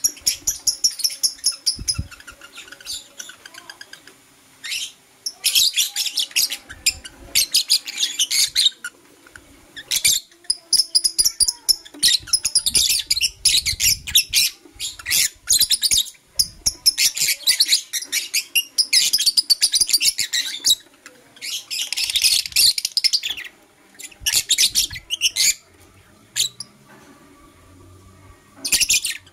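Lovebirds chirping in fast runs of high, shrill chirps, each run a second or a few long, with short pauses between them.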